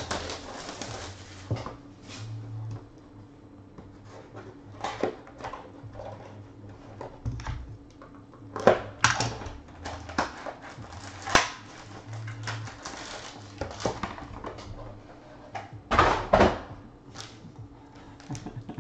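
Shrink wrap crinkling and a cardboard trading-card box and its packs being handled and opened: scattered rustles, taps and clicks, the sharpest three of them about 9, 11 and 16 seconds in.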